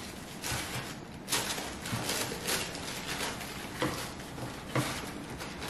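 White tissue paper rustling and crinkling as it is handled and pulled back inside a cardboard shoebox, in irregular bursts.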